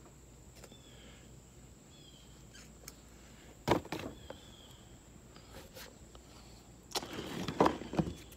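Faint bird chirps over a quiet outdoor background. There is a sharp knock about three and a half seconds in, then rustling handling noise with clicks near the end.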